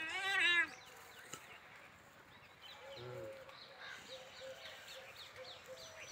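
A goat kid bleats with a quavering cry that cuts off abruptly under a second in. Small birds then chirp faintly in quick, short notes.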